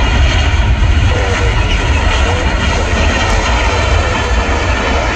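Jet engines of a Boeing 777-200 airliner during its landing rollout, a loud steady rumble.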